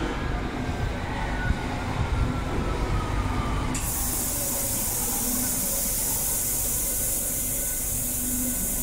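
A BVG H-class U-Bahn train braking into the station, its motor whine falling in pitch as it slows. About four seconds in, a loud steady hiss of compressed air starts suddenly as the train comes to a stop.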